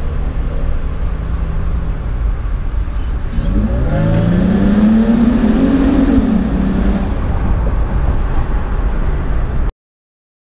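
Toyota 4Runner engine pulling hard, its revs climbing and then easing off, with a raspy note from the cold air intake and the URD Y-pipe exhaust, heard through the open rear window. It echoes off an overpass and cuts off suddenly near the end.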